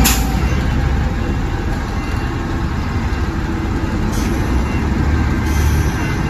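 Heavy-duty container forklift's diesel engine running steadily under load, with a sharp hiss right at the start and brief fainter hisses about four and five and a half seconds in.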